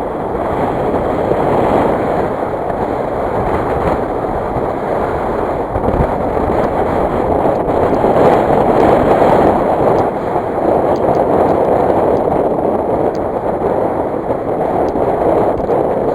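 Wind buffeting the microphone, a steady rushing noise that swells and eases, with a few faint small clicks in the second half.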